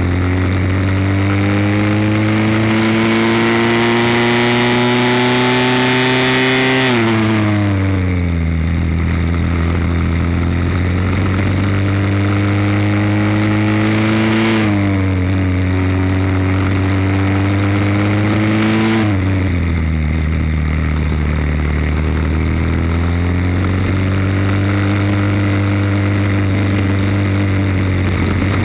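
Briggs & Stratton World Formula four-stroke single-cylinder kart engine at racing speed, heard onboard. Its note climbs slowly as the kart accelerates, then falls sharply three times as the driver comes off the throttle for corners, and climbs again after each.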